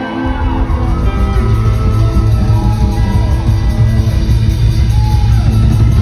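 Live country band playing loud through a concert PA: electric guitar, bass and drums, with the bass and drums coming in full just after the start and rising-and-falling high melodic notes over the top.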